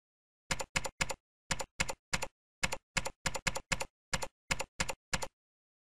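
Computer keyboard typing: about fifteen quick keystrokes in a little under five seconds, in an uneven rhythm with small pauses.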